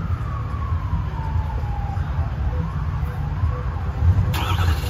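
A police siren wailing, its pitch sliding slowly down and then swinging up and down again, over the steady low rumble of an idling vehicle engine. A brief burst of noise comes near the end.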